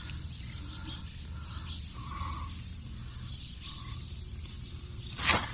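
Faint outdoor pond ambience with insects chirping, and one brief sharp noise about five seconds in.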